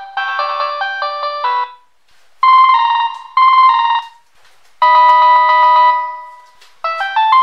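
Android Jelly Bean ringtones played as polyphonic MIDI tunes on a Nokia 3220. A quick run of notes stops about a second and a half in. After short pauses come two brief chords and then a longer chord that fades out. A new fast melody starts near the end.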